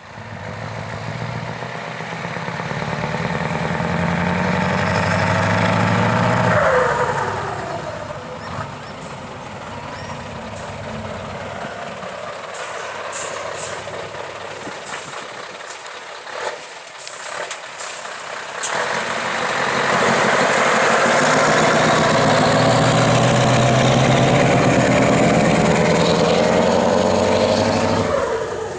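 Scania 144 530's 14-litre V8 diesel truck engine working hard through a bend. It builds up, then drops sharply in pitch as it backs off, with sharp exhaust pops ('klappert') while it runs quieter. About two-thirds of the way in it comes back loud and steady, then drops away at the very end.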